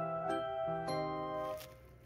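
Background music: a light instrumental tune of pitched, chiming notes that fades down near the end.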